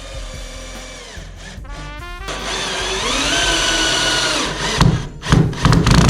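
Background music with a power tool running: a steady whine through the middle, then loud, choppy bursts of the tool near the end.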